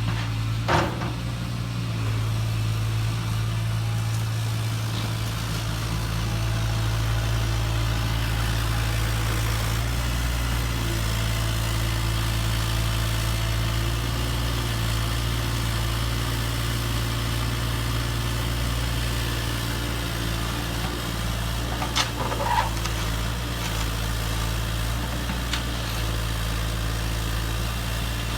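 Electric motors of radio-controlled model construction machines running with a steady low hum that shifts slightly in pitch now and then. A sharp knock comes about a second in, and two more about three-quarters of the way through.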